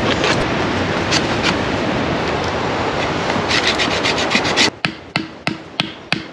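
Knife whittling a wooden stick, a steady scraping with faint strokes. About three-quarters through, this gives way to five sharp wooden knocks, about three a second, as a stick is driven into the ground with a hatchet.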